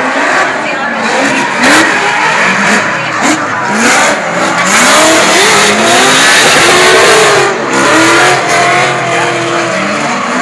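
Drift cars' engines revving hard, their pitch rising and falling again and again, over the loud hiss and squeal of tyres spinning into smoke.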